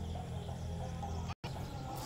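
Outdoor background: a steady low hum with faint bird chirps. The sound cuts out for an instant about one and a half seconds in.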